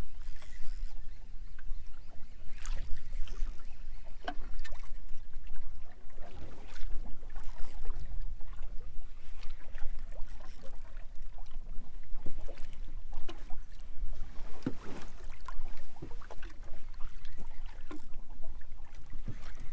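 Water slapping and splashing irregularly against the hull of a small fishing boat, over a steady low rumble.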